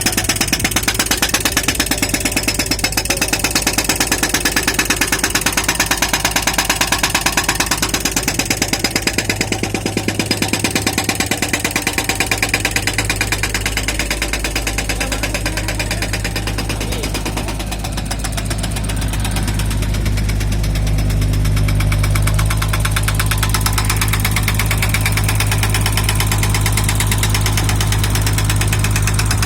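Hydraulic breaker hammer on a Doosan DX55w wheeled excavator pounding in rapid, even blows on hard ground that the bucket teeth cannot break, with the excavator's diesel engine running under load; the engine tone gets louder in the second half.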